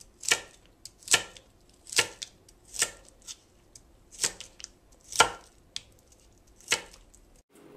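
Kitchen knife chopping celery into small squares on a cutting board: sharp single knocks of the blade striking the board, a little more than once a second, stopping just before the end.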